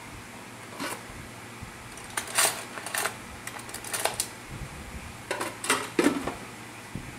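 Irregular light clinks and clatters of tableware being handled, in small clusters, over the steady hum of an electric fan.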